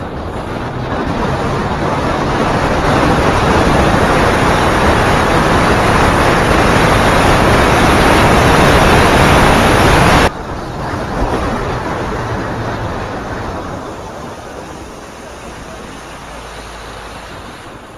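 Vehicle under way: a loud, even rushing noise of motion and wind, with no clear engine note. It builds over the first few seconds, drops abruptly about ten seconds in, and then gradually fades.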